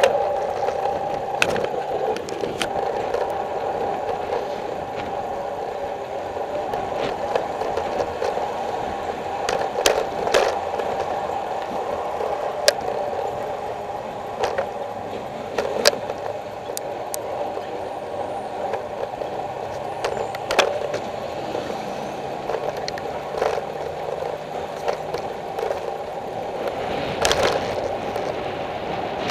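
Steady rolling road noise from a bicycle drafting close behind a box truck, heard through a bike-mounted camera, with frequent sharp knocks and rattles.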